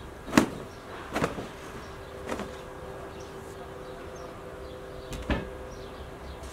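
A crocheted blanket shaken out of a window with two sharp flapping snaps, then the wooden window casements swung shut with lighter knocks, the last about five seconds in.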